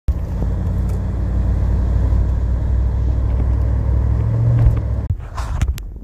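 Steady low rumble of a vehicle's engine and road noise heard from inside the cabin while driving on a slushy highway. It swells slightly a little after four seconds, then drops away about five seconds in, leaving a few faint clicks.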